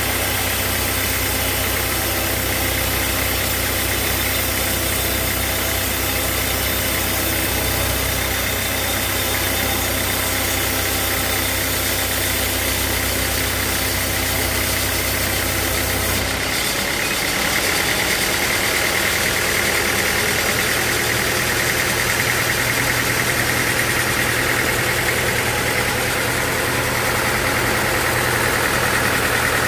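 Sawmill machinery running steadily with a low hum and a higher whine. About halfway through the low hum shifts, and the higher whine grows stronger after that.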